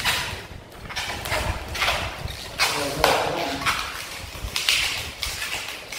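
Inflated latex modelling balloons rubbing against each other and the hands as they are twisted into shape, in several short bursts.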